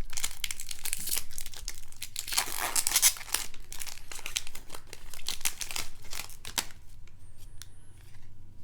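Foil baseball card pack wrapper being crinkled and torn open by hand, with dense crackling for about seven seconds that thins to a few light ticks near the end.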